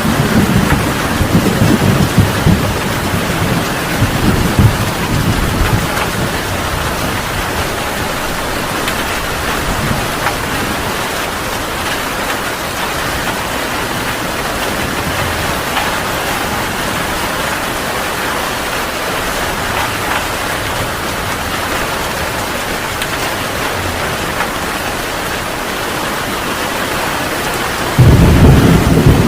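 Heavy rain falling steadily in a thunderstorm. Thunder rumbles and fades away over the first few seconds, and a new, louder rumble of thunder breaks in suddenly near the end.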